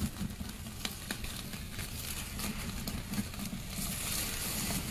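Ribeye steak sizzling directly on hot charcoal embers, with scattered crackles and pops from the coals.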